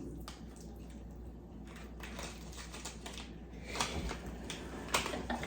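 Crunchy roasted-corn stick snacks being chewed: a scatter of small, crisp crunches, busier in the second half.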